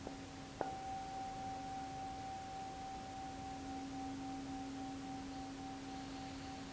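A metal singing bowl struck once, about half a second in, then ringing on with several tones, the higher one wavering in a slow pulse, over a steady lower drone.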